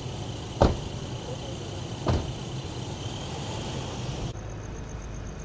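Armoured police truck's engine idling with a steady low hum, broken by two sharp bangs about a second and a half apart, the first the louder.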